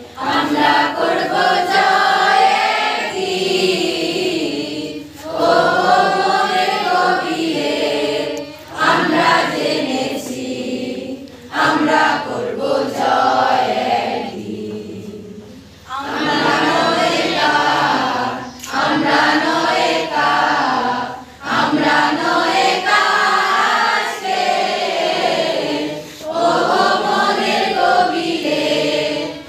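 A group of voices, women's among them, singing a song together with little or no accompaniment, in phrases of a few seconds each with short breaks between them.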